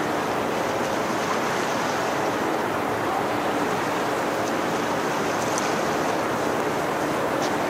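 Large container ship HMM GAON passing close by: a steady rushing of water along its hull with a low, even hum from the ship underneath.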